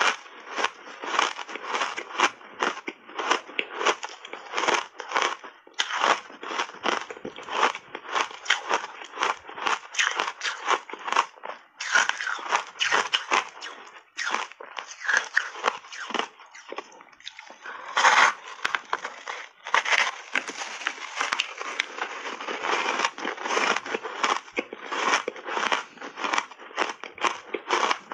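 Close-up crunching and chewing of refrozen ice chunks dusted with matcha powder, the ice cracking between the teeth in a rapid, continuous run of crisp crunches, picked up close by a clip-on microphone. There is a brief lull a little past halfway, then a loud crunch.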